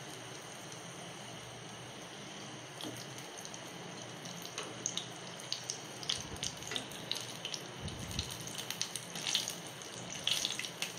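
Hot oil sizzling and bubbling steadily as pastry puffs deep-fry, with light clicks and taps from a wire skimmer in the pan from about halfway through, as the puffs are turned over.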